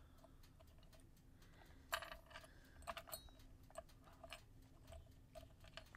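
Faint, scattered clicks and clinks of small metal jewelry charms and pendants being picked up and set down on a wooden tabletop, the sharpest click about two seconds in.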